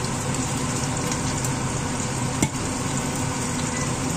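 Meat frying in a lidded pan, a steady sizzle as it renders its fat, with one sharp click about two and a half seconds in.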